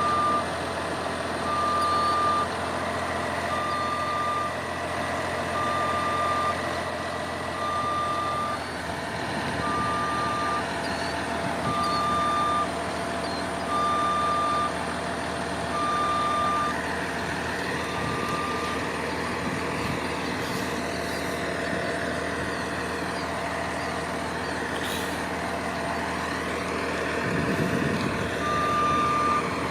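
Crane truck's warning alarm beeping about once every two seconds over its running engine. The beeps stop a little past halfway and start again near the end.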